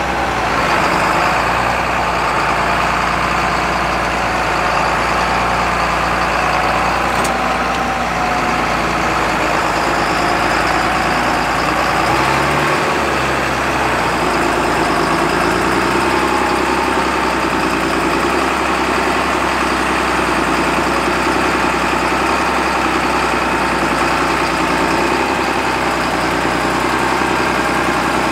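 Big tractor diesel engines running steadily: a John Deere 8400 close by, with a Case IH 620 Quadtrac behind it. The Quadtrac is stuck in mud and tethered to the Deere by a tow line for a pull.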